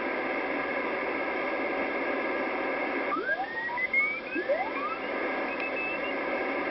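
Radio receiver hiss and static from a Kenwood TS-680 shortwave transceiver, with a few faint steady tones under it. From about three seconds in, several whistling tones slide up in pitch, one after another, until about six seconds.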